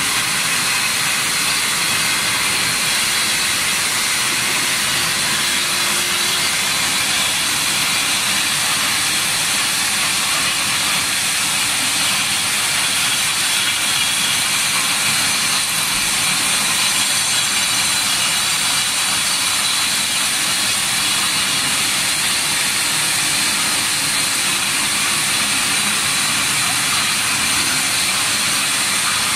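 Xingyi 250 single-phase concrete floor grinder running steadily as its grinding head cuts the laitance off a concrete floor, a constant high hiss and whine.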